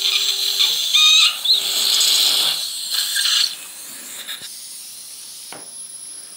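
Implant surgical handpiece running a Ø2.2 mm twist drill through a bridge guide, stopping briefly and starting again, under the hiss of water irrigation and surgical suction with a few short squeals. About three and a half seconds in it drops to a faint steady hiss with a thin high whistle.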